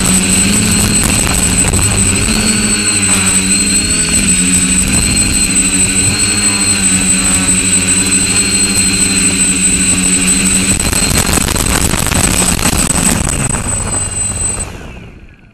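Quadcopter's electric motors and propellers whining close to the onboard camera, the pitch wavering as the throttle changes. After the quad sets down, the motors wind down over a few seconds and cut off near the end.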